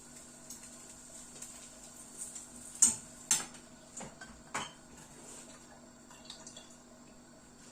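Kitchen utensils knocking against dishes and cookware: about four sharp clinks close together a little before the middle, over a faint steady hum.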